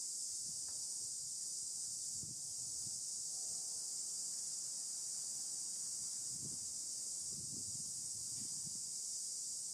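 Steady, high-pitched insect drone. A few faint soft thumps come through in the second half.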